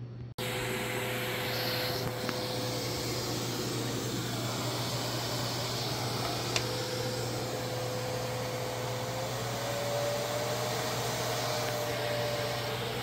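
PAWHAUS pet grooming vacuum running steadily: a constant whirring rush with a low hum and a held tone that rises slightly about nine seconds in. A single sharp click about six and a half seconds in.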